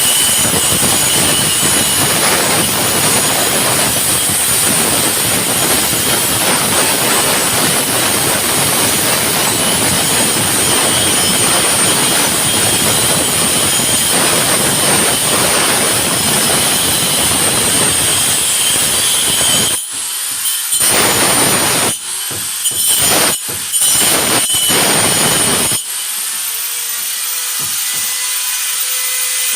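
Electric grinder running with a dense grinding noise and a high whine for about twenty seconds. It is then switched off and on in several short bursts, each start marked by a rising whine as the motor spins up. Near the end it runs on more quietly and steadily.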